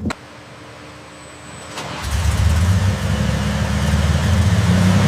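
The restored vintage van's engine starts about two seconds in, after a short quiet stretch, and settles into a steady low running note.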